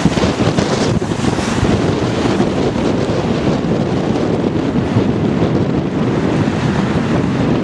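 Strong wind buffeting the microphone aboard a sailing dinghy: a steady, loud rushing noise, heaviest in the low rumble.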